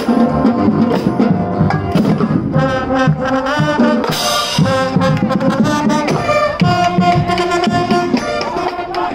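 High school marching band playing a loud tune on brass and drums, with sustained brass chords over a steady drum beat.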